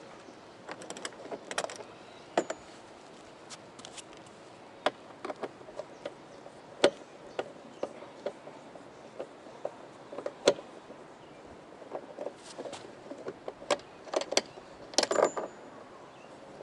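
Irregular clicks, taps and light rattles of hands working with tools and small parts. The sharpest knocks come about 7 and 10.5 seconds in, and a quick cluster of rattles comes near the end.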